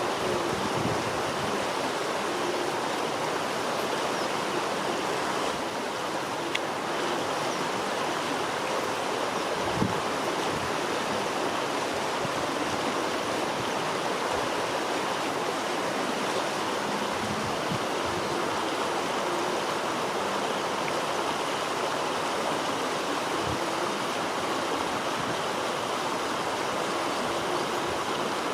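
Floodwater rushing steadily, with a couple of faint knocks.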